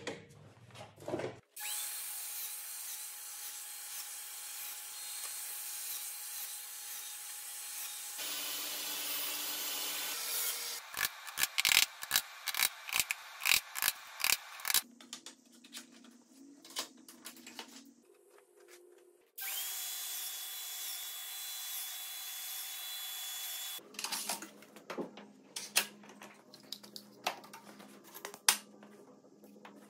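Woodworking on a bench: a power tool runs steadily for a few seconds, a hammer strikes wood in a rapid run of about a dozen blows, and the power tool runs again, followed by scattered clicks and knocks.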